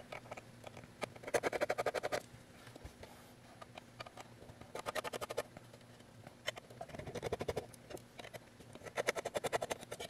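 Small Phillips screws being turned out of the back panel of an aluminium hard-drive enclosure with a number one Phillips driver: four short runs of rapid small clicks, about ten a second, one run per stretch of turning.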